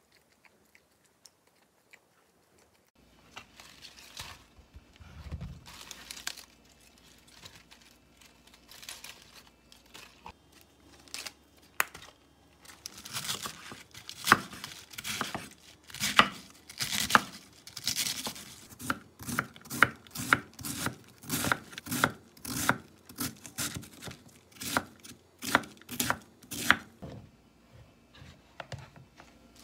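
A knife cutting crisp lettuce and red cabbage on a wooden cutting board: first scattered crackling, tearing cuts, then from about halfway quick regular chopping strokes about two a second, each with a knock on the board.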